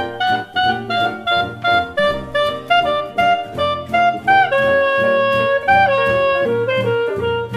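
Background jazz music: a saxophone-like horn melody over bass and light drums, holding one long note in the middle.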